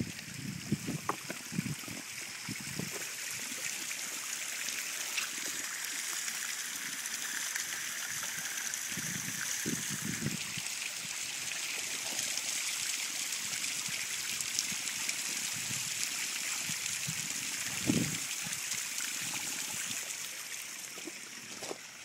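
Waterfall running steadily over rocks, a continuous trickling rush of water. A few dull low bumps sound over it near the start, about halfway through and once more a few seconds before the end.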